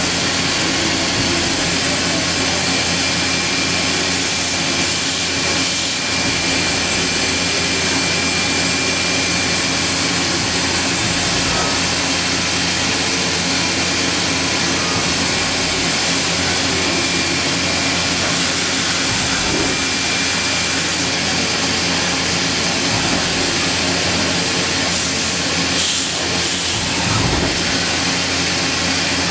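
1995 Fadal 4020HT vertical machining center running a dry-run program with no cutting: a steady mechanical hum and hiss as the table moves under the tool. A faint high whine fades after the first third.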